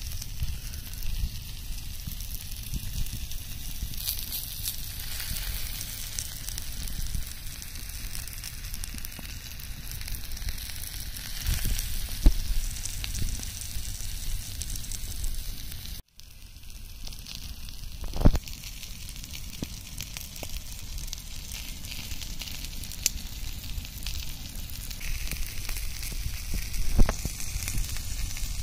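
Chicken pieces sizzling in their own juices and oil on a flat stone slab heated over an open fire, with the odd sharp pop.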